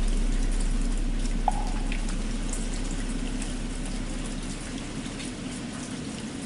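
Steady rain with the deep hum of a struck temple bell slowly fading away. There is one faint short knock about a second and a half in.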